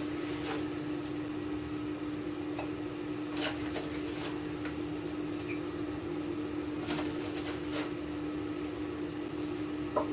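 A tablespoon clicking and scraping lightly against a tub and a mug, a few separate taps as gravy powder is spooned in, over a steady low mechanical hum.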